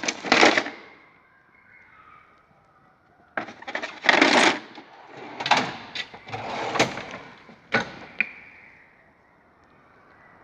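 Tool chest drawers sliding open and shut on their runners, with the tools inside rattling and knocking. One drawer goes at the start, then after a pause several more slide and clack in quick succession.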